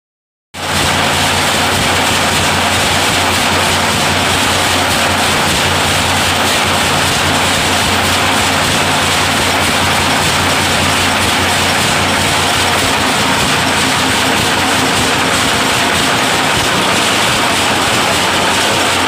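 Automatic wire nail making machine running at production speed, turning out nails: a loud, steady, rapid mechanical clatter over a steady low hum.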